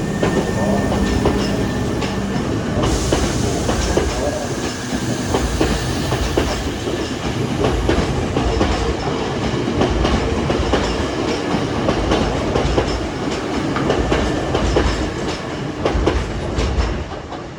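Hankyu 5300-series electric train pulling out of the station: steady running noise with many wheel clicks as the cars go over rail joints and points.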